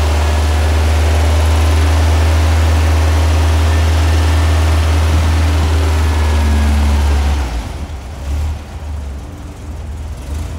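Freshly built 1914cc VW air-cooled flat-four with dual 44 IDF Weber carburetors running steadily on an engine stand, through a temporary header and muffler. About seven seconds in the engine sound stops abruptly, leaving quieter, uneven sounds.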